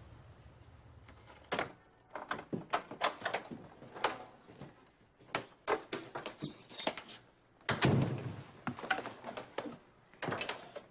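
A front door opening, then a run of footsteps and knocks as people come in off the porch. The loudest thump comes about eight seconds in.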